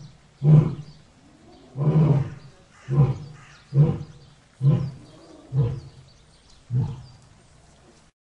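A lion roaring: a series of seven short, deep roars, about one a second, fading out after the last one.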